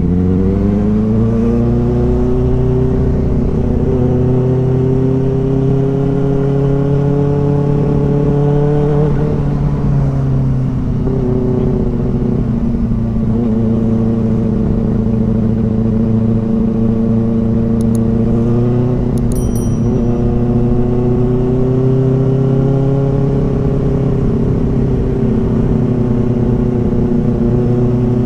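Inline-four superbike engine running under way: its note climbs in pitch just after the start, then holds fairly steady with small rises and falls around ten and nineteen seconds in. A few brief high chirps sound around eighteen to twenty seconds in.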